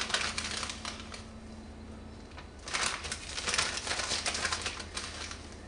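Spoonfuls of dry custard powder being scooped and tipped into a stainless steel saucepan: a dry, scratchy rustle in two bursts, one at the start and a longer one about two and a half seconds in.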